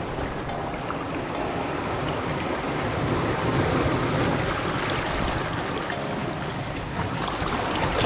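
Steady rushing wind buffeting the microphone, mixed with the sea's surf, with no separate events standing out.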